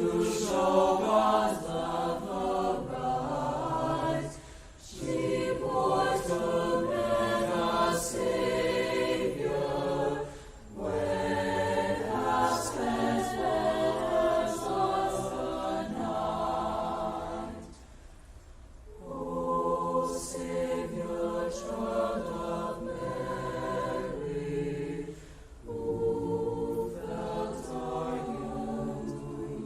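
A choir singing in several voice parts, phrase by phrase, with short breaks between the phrases.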